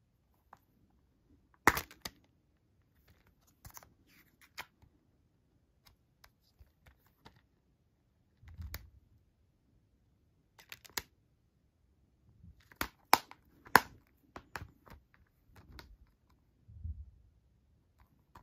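Plastic Blu-ray cases being handled: scattered sharp clicks and snaps of a case being opened and shut, the loudest a quick run of snaps about 13 to 14 seconds in, with a couple of soft thumps.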